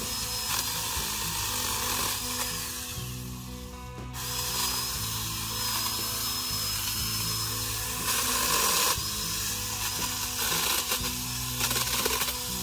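A handheld power saw runs as it cuts through tree branches and brush, over background music with sustained bass notes.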